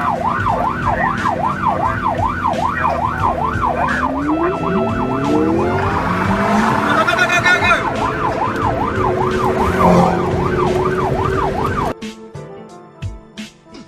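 Police siren wailing rapidly up and down, about two to three sweeps a second, over traffic noise; around the middle a car engine revs up as it accelerates. About twelve seconds in the siren cuts off and music begins.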